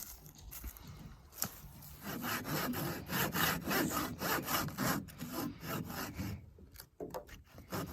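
Firewood being sawn by hand: rhythmic rasping saw strokes through wood start about two seconds in, stop briefly near the end, then start again.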